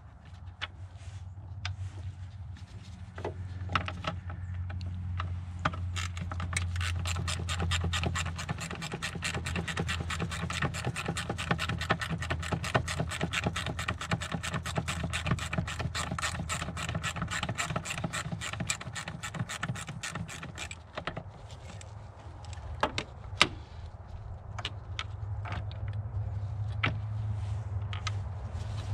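Rapid, evenly spaced mechanical clicking that starts about six seconds in and stops abruptly some fifteen seconds later, over a low steady hum. A few separate knocks come before and after it.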